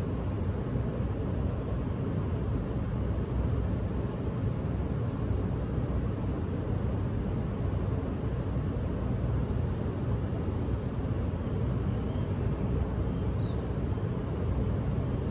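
Steady low outdoor rumble with no clear single source, the ambient hum of an open city rooftop. A couple of faint short high chirps come near the end.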